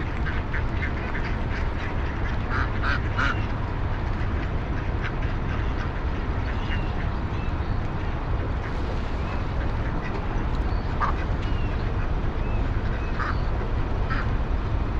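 A flock of ducks quacking: a quick run of three calls about three seconds in and scattered single quacks later on, over a steady low rumble.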